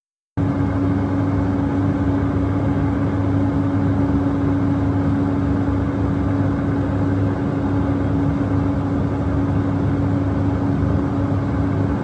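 Aircraft cabin noise in flight: a steady engine and airflow drone with one constant hum running through it. It starts abruptly about half a second in.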